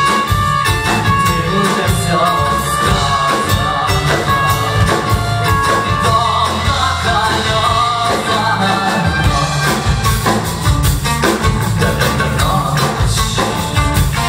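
Live rock band playing an instrumental passage: electric guitars, bass guitar and drum kit, with a wooden transverse flute playing the melody.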